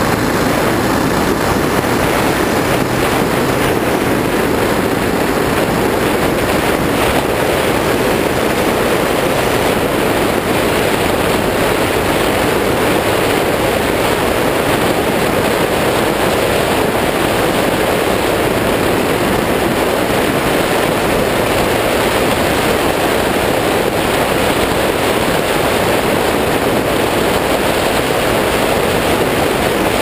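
Suzuki DR650 motorcycle riding on a dirt road: a steady wind rush on the microphone over the engine, with no breaks or distinct events.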